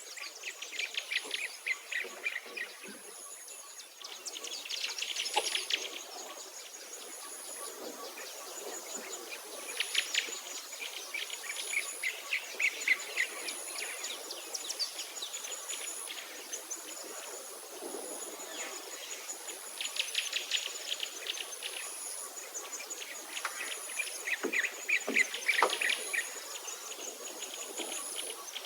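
Birds singing in repeated trilled phrases over a steady, high, regular chirping, roughly once every second and a half, typical of insects.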